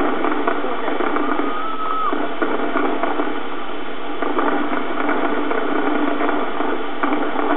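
Fireworks display: a dense, steady crackle with a few faint bangs, and a brief high tone a little over a second in.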